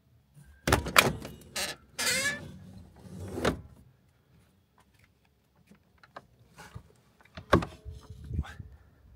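Several sharp clunks and knocks, with a short sliding scrape about two seconds in, then a pause and two more knocks near the end.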